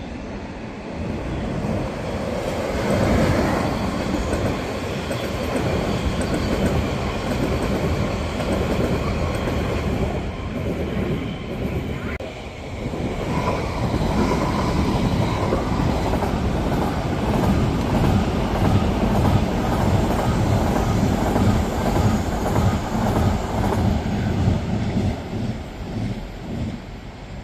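SJ electric passenger trains passing on the tracks below: a steady rumble of wheels on rails with some clickety-clack and a faint squeal. The sound dips briefly about halfway, builds again, and fades near the end.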